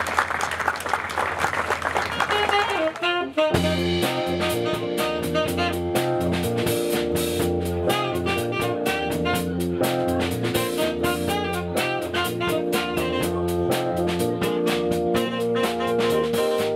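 Applause for about three seconds, then a sudden cut to a live jazz combo playing: stage keyboard and drum kit with a steady beat.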